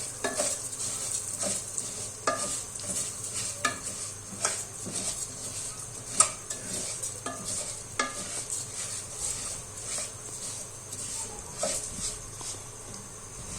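A spoon stirring and scraping in a pot of orzo frying in hot fat, with a steady sizzle and irregular clicks of the spoon against the pot about once a second.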